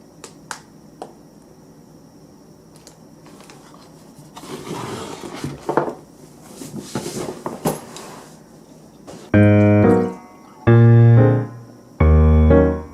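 A few light clicks and some rustling handling noise, then background piano music comes in about nine seconds in with three loud held chords.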